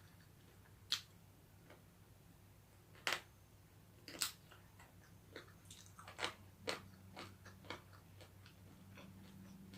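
Close-up eating sounds: someone biting and crunching cooked chicken bones. Three sharp crunches come a second or two apart, followed by a quicker run of smaller crunches and chewing.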